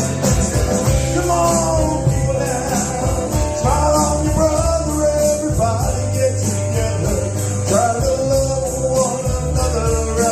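Live rock-and-roll band playing: a bending melodic lead line over a steady bass line.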